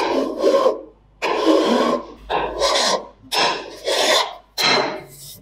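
Hand file rasping across a vintage Honda 70cc motorcycle's aluminium engine side cover, about five strokes roughly a second apart, stripping corrosion down to bare metal.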